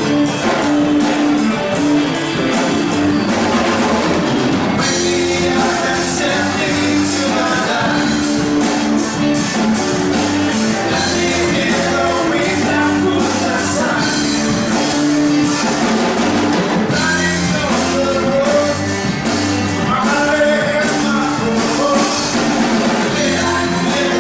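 Live rock band playing: electric guitars and a drum kit, with a woman singing lead.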